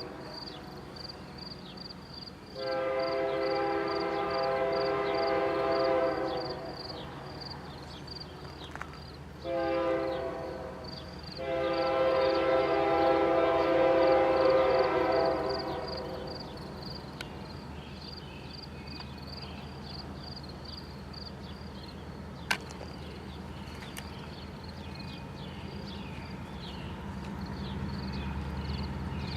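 BNSF GE Evolution locomotive's K3LA five-chime air horn sounding the grade-crossing signal: long, short, long blasts, after a long one just before. Under it a crossing bell dings steadily and the diesel's rumble grows louder near the end as the locomotive approaches.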